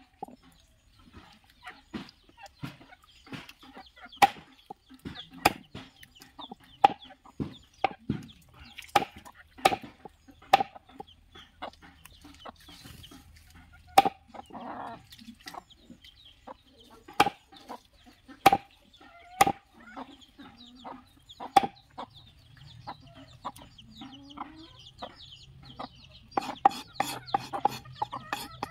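A heavy knife chopping raw chicken on a wooden log block, a sharp chop about every second, with chickens clucking in the background.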